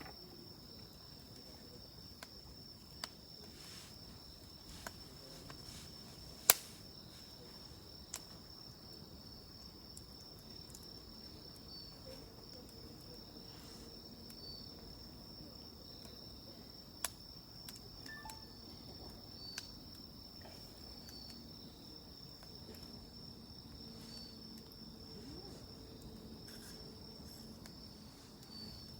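Insects trilling steadily at a high pitch, with occasional sharp pops and crackles from a wood fire; the loudest pop comes about six and a half seconds in.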